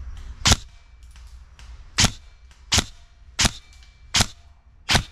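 Airsoft rifle firing single shots: six sharp cracks, the first on its own and the other five coming quickly, about three-quarters of a second apart.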